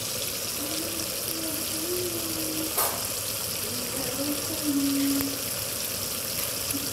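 A steady hiss, with faint voices in the background twice and a single short click about halfway through.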